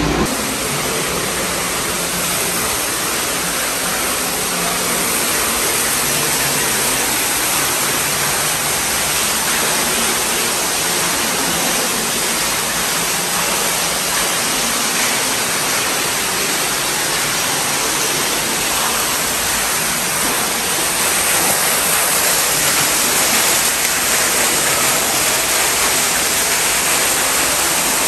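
Steady rushing of running water, an even hiss with no breaks, a little louder over the last several seconds.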